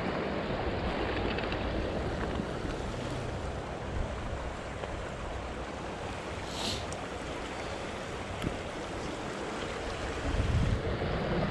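Steady rush of a high-running creek flowing over a riffle, mixed with wind on the microphone that swells into a low rumble near the end.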